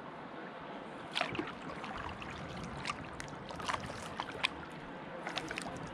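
Kayak paddling: paddle blades splashing and dripping at irregular strokes over a steady wash of moving water, with sharp splashes and knocks starting about a second in.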